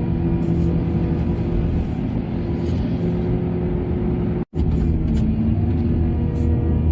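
Heavy diesel machinery engine running steadily under load, with a brief sudden dropout about four and a half seconds in.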